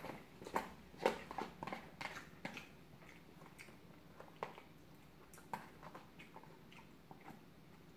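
A man chewing and eating udon noodles close to the microphone, with short wet mouth smacks and clicks. They come thick and fast in the first few seconds, then more sparsely.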